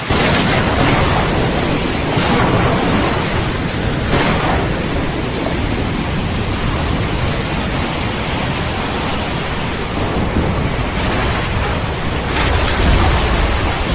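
Steady heavy rain with rolling thunder, louder swells of thunder coming at the start, around two and four seconds in, and a deeper rumble near the end.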